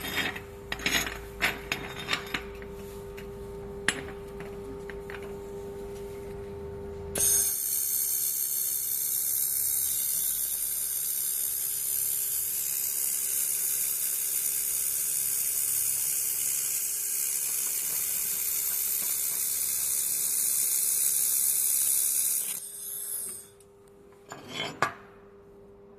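2000 W laser welding machine welding steel: a few metal clinks over a steady machine hum, then about seven seconds in a loud, steady high hiss of the weld and its gas flow starts, runs about fifteen seconds and cuts off, with a couple of clicks near the end.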